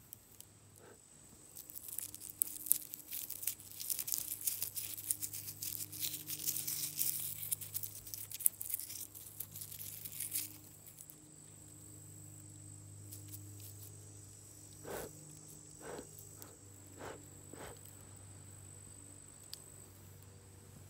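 Dry wheat spikelets crackling and rustling as they are rubbed and crushed between the fingers over an open palm, dehusking the grain. About halfway through, the crackling stops, and a few short puffs follow as the chaff is blown off the grains.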